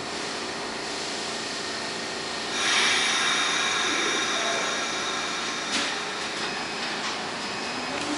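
R46 subway train standing at the platform and then starting off. A loud hiss comes in about two and a half seconds in, a short clunk follows near six seconds, and near the end the traction motors start a whine that rises in pitch as the train pulls away.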